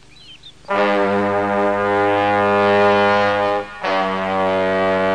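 Soundtrack music: a brass-like fanfare of two long held notes, the first starting just under a second in and the second following after a short break. Birds chirp faintly just before it.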